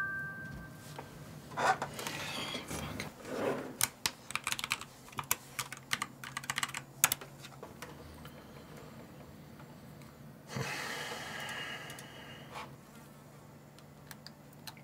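Computer keyboard typing, with a run of quick key clicks a few seconds in, over a steady low hum. About ten seconds in a buzzing sound lasts for about two seconds.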